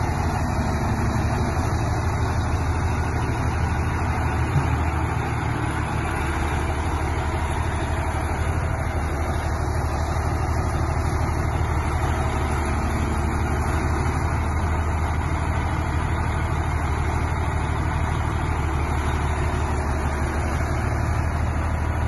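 ACO 460 articulated tractor's Cummins straight-six diesel running steadily at low revs as the tractor creeps along a lowbed trailer.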